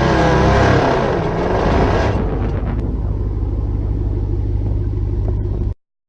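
Supercharged 6.2-litre HEMI V8 of the Ram Rebel TRX concept pickup running, its pitch rising and falling over the first two seconds, then settling into a steady low rumble that cuts off suddenly near the end.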